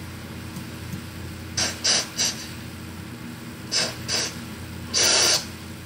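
A person's short, sharp breaths or breathy hissing bursts, in three groups (three quick ones, then two, then a longer one near the end), over a steady low hum.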